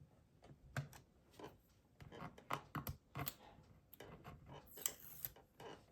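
Faint, irregular small clicks and scrapes from hand-tool work on a laptop's plastic back cover: a screwdriver on its screws and a slim pry tool on its clips.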